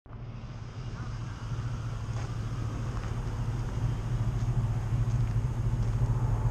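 Vehicle engine idling with a steady low hum, growing slightly louder.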